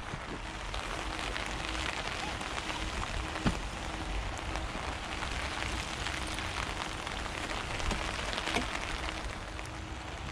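Steady pattering of water, like rain falling on a surface, with a single sharp knock about three and a half seconds in.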